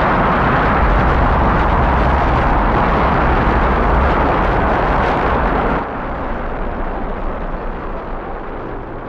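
Rocket engines firing at liftoff: a loud, steady, deep rushing noise. About six seconds in it drops to a quieter, duller rumble, as of the launch heard from far off.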